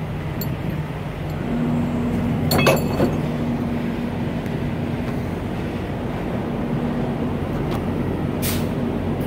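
Fuel tanker truck's diesel engine idling steadily. A sharp metallic clank comes about two and a half seconds in, and a short hiss of air near the end.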